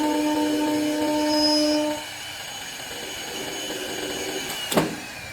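CNC wood lathe running with a steady machine whine that cuts off about two seconds in, leaving a quieter hum. A short, sharp sound comes near the end.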